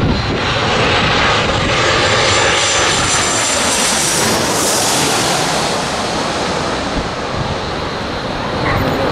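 Boeing 737-700 with CFM56-7B turbofan engines passing low overhead on landing approach: a loud jet roar with a high whine, swelling to its peak about halfway through as the aircraft goes over, then easing as it moves away toward the runway.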